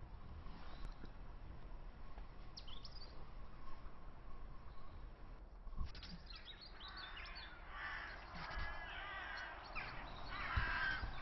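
Birds calling: a few short calls early on, then busier overlapping calls through the second half, over a low steady rumble.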